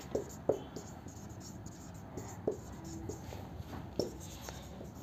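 Marker pen writing on a whiteboard: faint scratching and squeaking strokes with a few short taps as letters are drawn.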